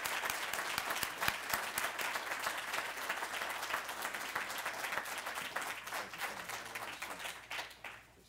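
Audience applauding: a dense patter of many hands clapping that thins out and fades away near the end.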